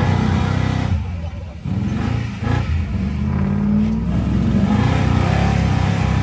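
Off-road wrecker truck's engine revving hard as it drives through deep loose sand, the revs rising and falling several times.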